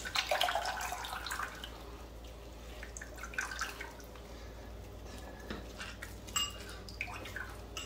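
Hands squeezing a lump of fresh butter in a pot of buttermilk, pressing the buttermilk out: wet squelching and dripping, loudest in the first second or two, then fainter.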